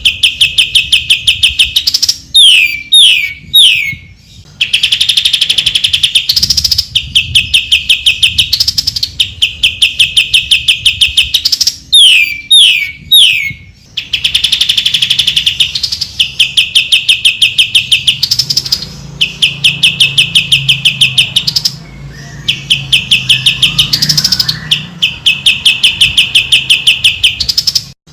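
Greater green leafbird (cucak ijo) song: loud, rapid high trills in phrases a second or two long, following almost without pause, broken twice by three quick downward-sliding whistles. The same phrase sequence comes round again about every ten seconds, as in a looped recording.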